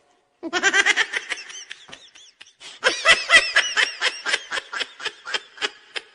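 Laughter sound effect: rapid, pulsing laughter in two bouts, the first starting about half a second in and the second after a short break near the two-and-a-half-second mark.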